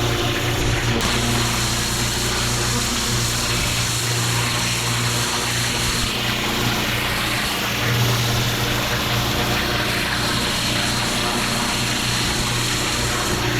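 Petrol-engined pressure washer running steadily, its engine drone under the constant hiss of high-pressure water spray.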